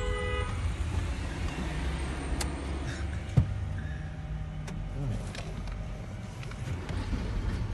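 Steady low rumble of car and traffic noise heard from inside a car. A car horn's honk cuts off in the first half second, and there is one sharp click about three and a half seconds in.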